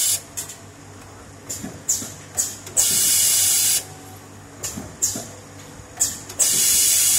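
Servo-driven double-spindle thread tapping machine cycling automatically as it taps T sleeve nuts: a steady low hum with repeated sharp air hisses. Two of the hisses last about a second, one near the middle and one near the end.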